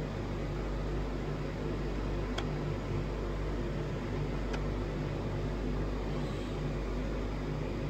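Steady low hum and hiss inside a car's cabin, with two light clicks about two seconds apart.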